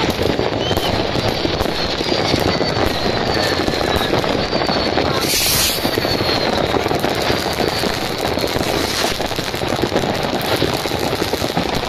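Dense New Year's Eve fireworks: a continuous din of many rockets and firecrackers bursting at once, crackling throughout. Several long, slowly falling whistles run through it, and a brief hiss comes about halfway in.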